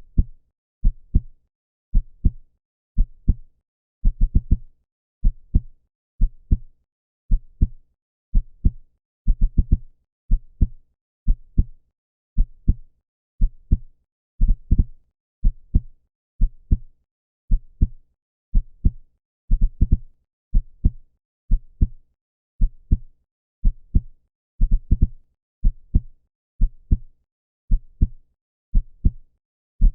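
Human heartbeat: a steady lub-dub, two short low thumps in quick succession, repeating about once a second.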